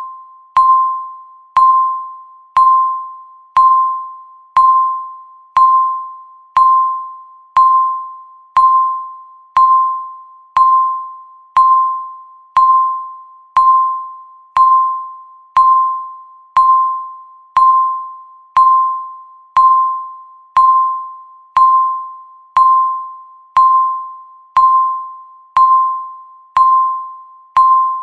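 Countdown timer's tick sound, one per second: each tick is a short, bell-like beep with a sharp click at the start and a quick ringing fade, repeating evenly.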